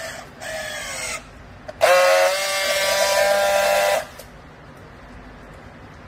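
Battery-powered handheld strapping tool working on plastic strap around a bale. Two short motor whines in the first second, the second falling slightly in pitch as it tensions the strap, then a loud, steady high-pitched buzz for about two seconds as it welds the strap.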